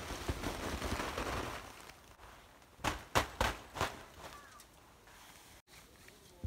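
Snow sliding in a rushing hiss down the sloped canvas of a snow-laden polycotton tipi tent (Tent-Mark Circus TC). About three seconds in come four short, sharp crunches of steps in deep snow.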